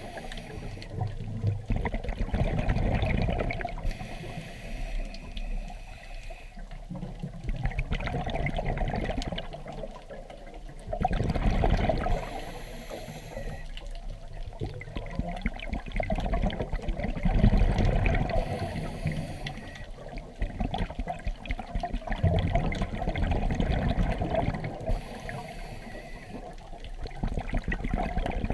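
Muffled rushing and bubbling of water heard through an underwater camera's housing, swelling and fading every five or six seconds.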